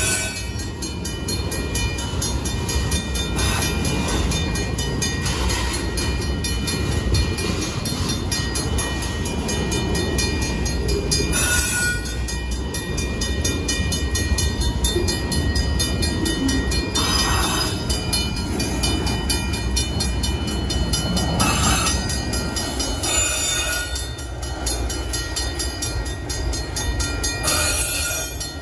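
A long freight train of autorack car carriers rolling steadily through a grade crossing: a continuous low rumble of wheels on rail. A few brief, sharper high-pitched noises come every several seconds.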